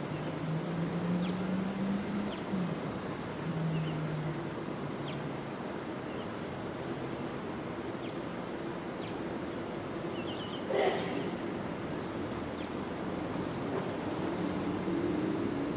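Gusty wind making a steady rushing noise on the microphone, with a few faint, brief high chirps and one short, sharper sound about eleven seconds in.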